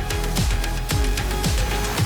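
Electronic background music with a steady beat of deep kick drums that drop in pitch.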